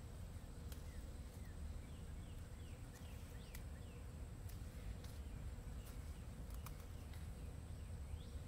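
Faint outdoor garden ambience: small birds giving scattered short, falling chirps over a steady high-pitched whine and a low rumble, with a few sharp clicks.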